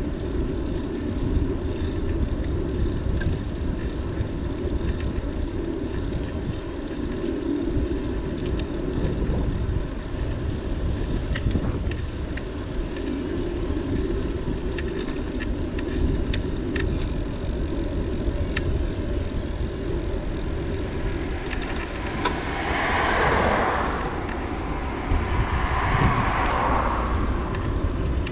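Wind on the microphone and road rumble while riding a bicycle, steady throughout, with two vehicles passing near the end.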